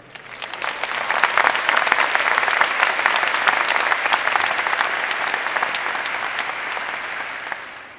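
Large arena audience applauding, a dense patter of thousands of hands. It swells up within the first second, holds, and dies away near the end.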